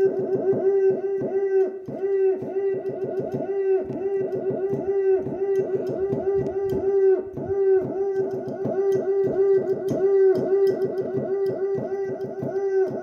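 A man imitating monkey calls: rapid, overlapping rising-and-falling 'oh ah ah' hoots, several a second, layered through a voice effect over a steady tone.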